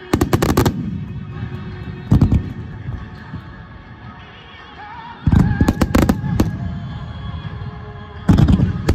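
Fireworks bursting in volleys of rapid sharp bangs: one volley right at the start, another about two seconds in, a longer run about five seconds in, and another near the end.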